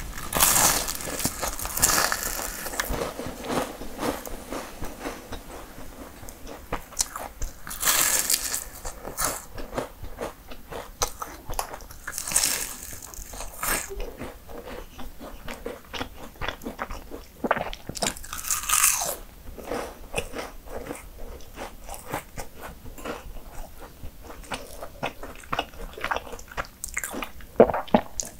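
Close-miked eating of flaky mini puff pastries: several loud crunchy bites through the layers, with crackly chewing in between.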